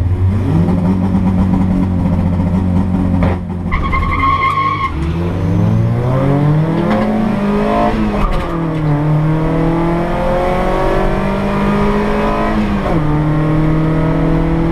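Ford Escort drag car's engine held at steady high revs on the line, then launching with a short tire squeal about four seconds in. The revs then climb hard down the strip, dropping at gear changes about eight and thirteen seconds in.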